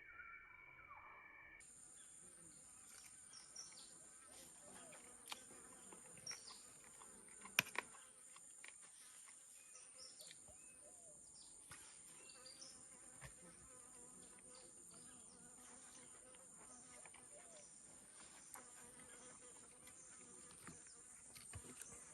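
Faint, steady high-pitched insect chorus, such as crickets or cicadas, that sets in about a second and a half in, with scattered short chirps and a few sharp clicks, the loudest about eight seconds in.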